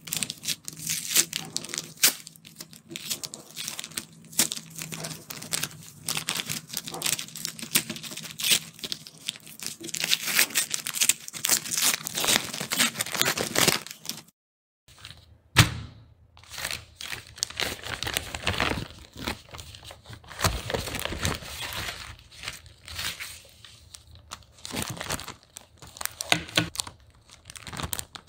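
Paper mailer envelope being torn open and its paper crinkled by hand: dense crackling and rustling. After a short break about halfway, crinkling of a clear plastic packaging sleeve being handled.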